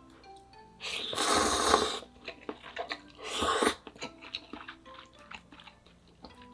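Two loud slurps of ramyeon noodles, the first over a second long and the second shorter, with small wet chewing clicks between them.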